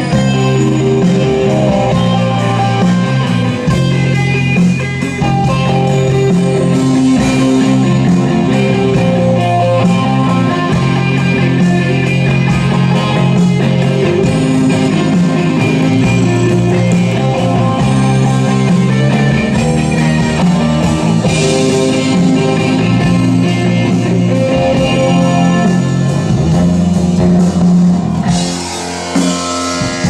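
Rock band playing live, with electric guitar to the fore over bass, and no singing. The sound changes abruptly near the end.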